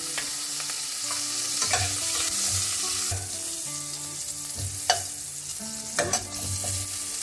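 Cumin seeds and chopped green chili sizzling in hot ghee in a stainless steel pan, a steady hiss. A metal spatula scrapes and taps against the pan a few times, sharpest about five and six seconds in.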